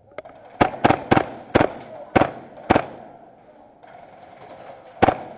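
Airsoft guns firing single sharp shots, echoing in a large hall: six shots at uneven intervals in the first three seconds, then a pause and one more near the end.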